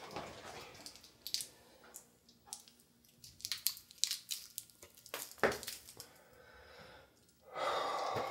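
Small scattered clicks and taps of eyeglasses and objects handled on a countertop, with one louder knock about five and a half seconds in and a rush of hissing noise near the end.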